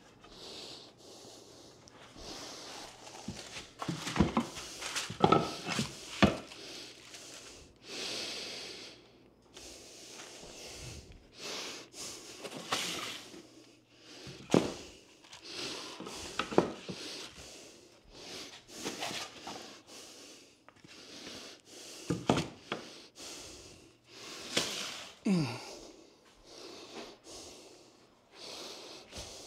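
Hardwood floorboards being laid by hand: scattered sharp knocks as boards are set down and tapped into place, with scraping and rustling between. The knocks are loudest a few seconds in and come again around the middle and two-thirds through.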